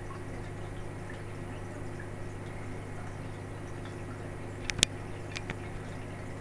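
Aquarium pump and filter running with a steady hum and water noise, with a few faint drips. A pair of sharp clicks about three-quarters of the way through, then two fainter clicks half a second later.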